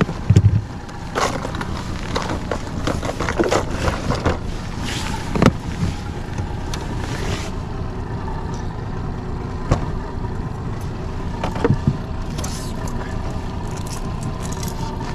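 Honda 30 hp four-stroke outboard running steadily under a small aluminium-hulled fishing boat. Over the first several seconds there is a run of clicks and knocks in the boat, then only a few single knocks.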